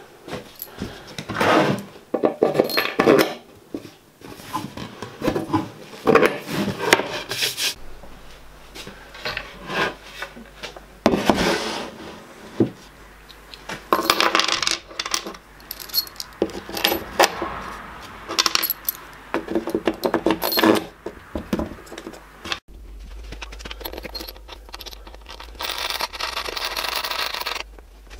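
Steel bolts and washers clinking and rattling as they are handled and fitted through a plywood drill press table into the slotted cast bed of a pillar drill, in a string of separate bursts.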